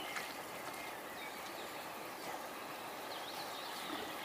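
Quiet outdoor ambience: a steady even hiss with faint, scattered bird chirps.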